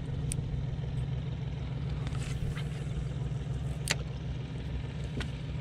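Steady low hum of a boat's motor running, with a few sharp clicks from the spinning reel and rod being handled.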